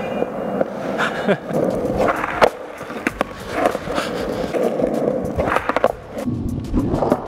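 Skateboard wheels rolling steadily on a smooth hard floor, broken by several sharp clacks of the board hitting the ground, the loudest about two and a half seconds in and a cluster near the end, as a fakie backside anti-bigspin is tried.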